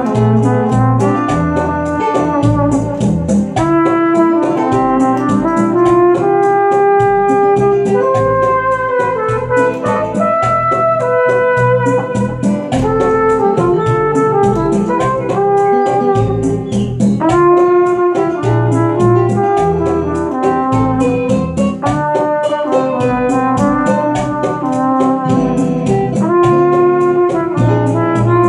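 Long-bell trumpet playing a melody of held notes and short runs over a backing track with a steady beat.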